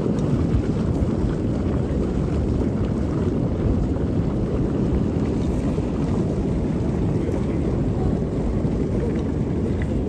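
Muddy floodwater rushing through a rocky, gravel-strewn riverbed, heard as a steady deep rumble.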